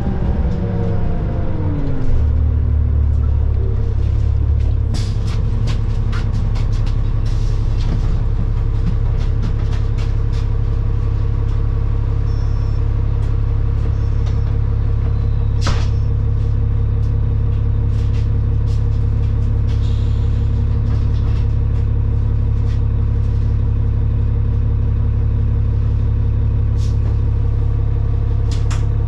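New Flyer D40LFR diesel bus engine dropping in speed over the first two seconds, then idling steadily with the bus stopped. Scattered small clicks and rattles are heard over the idle, with one sharper click about halfway through.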